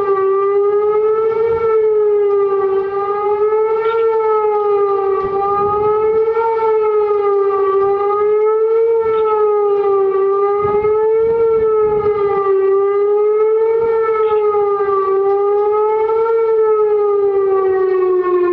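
Outdoor civil-defense tornado warning siren wailing, its pitch and loudness swelling and dipping about every two and a half seconds as it rotates. Near the end the pitch starts to slide down as the siren winds down.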